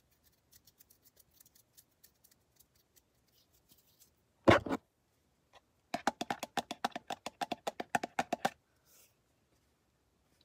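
Fingernails tapping fast on a plastic CeraVe lotion bottle, about eight crisp taps a second for some two and a half seconds. Before that come faint light ticks and one brief, loud scuffing sound about halfway through.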